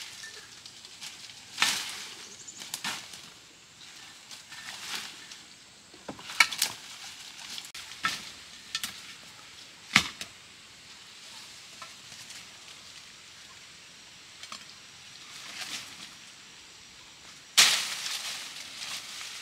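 Dry leaves, twigs and brush crackling and snapping irregularly as a person pushes through forest undergrowth, with a longer rustling burst near the end.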